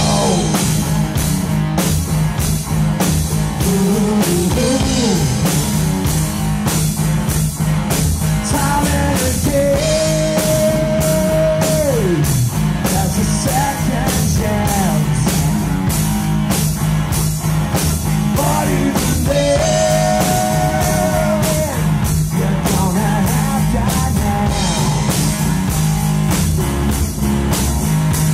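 Live rock band playing: a male lead vocal over electric guitar, bass guitar and drum kit, with a steady drumbeat. The singer holds two long notes, about ten and twenty seconds in.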